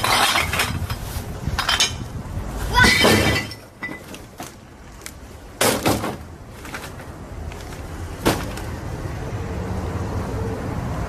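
Several sudden crashes and knocks, about five in all, the loudest about three seconds in, over a steady low rumble of wind on the microphone.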